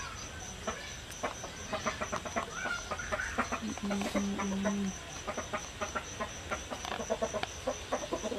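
Animal sounds: a quick run of short, clipped calls starting about a second and a half in, over a faint high chirp of insects pulsing about four times a second.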